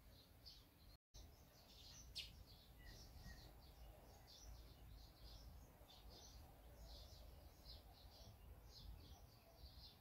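Barn swallows chirping faintly: a running series of short, high chirps, two or three a second, with one sharper note about two seconds in.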